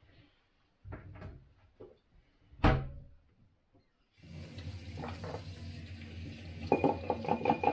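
A few knocks and one sharp, loud clack, then a kitchen tap is turned on about four seconds in and water runs steadily into a stainless-steel sink. A plastic cup being rinsed under the stream clatters near the end.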